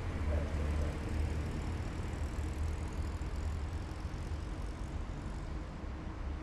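Heavy military vehicles on the road, a deep steady engine rumble that slowly fades a little.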